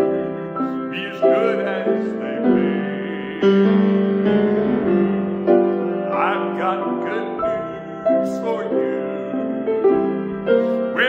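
A man singing a slow gospel song with vibrato while accompanying himself on a grand piano, the piano holding sustained chords under the voice.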